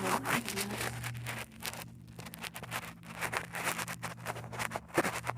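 Slime being squished and stretched by hand, making quick irregular sticky crackles and clicks, over a steady low hum.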